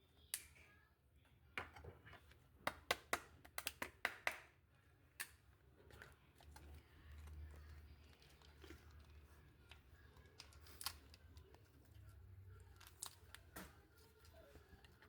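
Light clicks and taps of kitchen items being handled, a quick run of them in the first five seconds, then only a few scattered ones.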